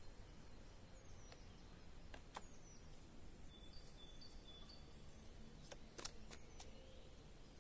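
Near silence: faint outdoor background with a few short, distant bird chirps and several soft clicks.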